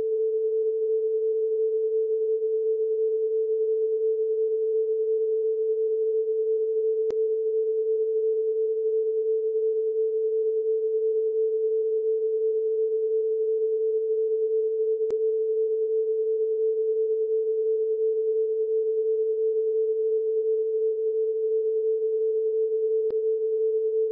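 Electronic test tone: a single steady, unbroken pure note at a middle pitch, like a TV station's sign-off tone played over a test pattern.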